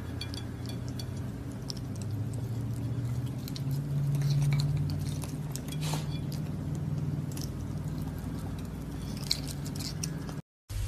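Scattered small clicks and taps of a raccoon's claws against a china plate and a wooden table, over a steady low hum.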